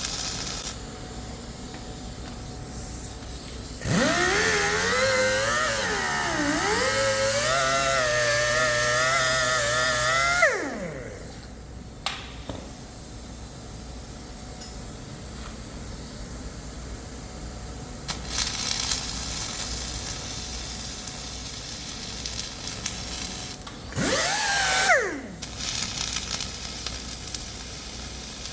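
An electric power tool's motor runs for about six seconds, its pitch dipping and recovering as it is loaded, then spins down. Near the end it is started briefly and spins down again.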